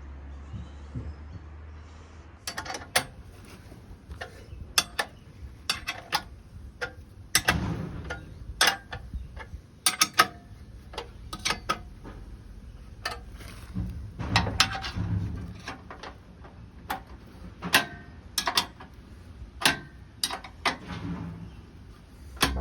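A string of irregular sharp clicks and clunks from hands-on installation work, with tools and parts being handled. A low hum fades out in the first couple of seconds.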